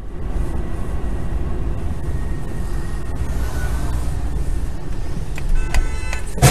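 Steady low rumble of a car's engine and tyres on the road, picked up by a dashcam inside the moving car, with a few short sharp knocks near the end.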